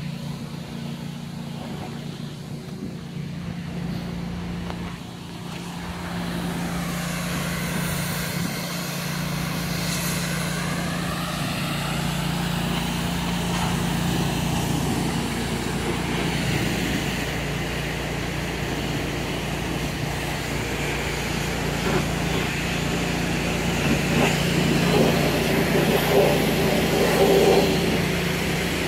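A diesel engine idling steadily, plausibly the Cat 950H wheel loader's own engine. A broad rushing noise swells over it from about six seconds in, with a sweeping whoosh around eight to ten seconds in.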